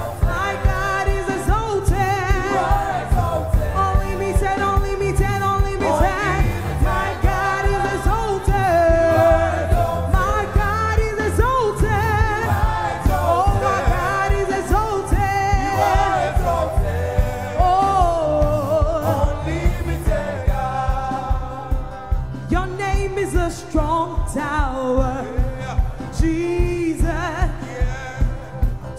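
Gospel choir singing a worship song into microphones, several voices together over a steady beat.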